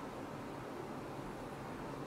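Steady background noise: an even hiss with a low hum, with no distinct clicks or other events.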